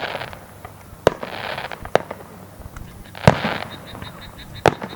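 Aerial fireworks shells bursting in sharp bangs, about one a second, with short stretches of hissing crackle between them.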